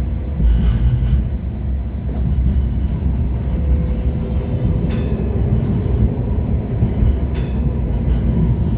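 First-generation MTR Light Rail car running along the track: a steady low rumble of wheels on rail with a constant motor hum, and a few sharp clicks.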